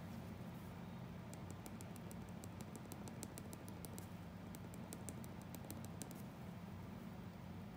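Drawing pencil making quick, short strokes on paper: runs of faint, light ticks, many a second, broken by short pauses, over a steady low hum.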